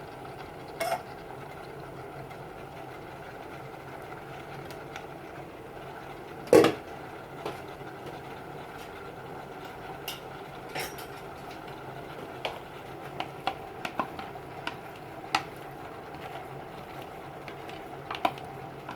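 A cooking utensil knocking and clinking now and then against a pan of stir-fried vegetables, with a steady hiss underneath; one sharp knock about six and a half seconds in is the loudest.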